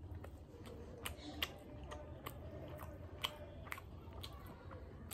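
A person chewing a mouthful of chicken biryani, with small wet mouth clicks coming irregularly about twice a second over a low steady hum.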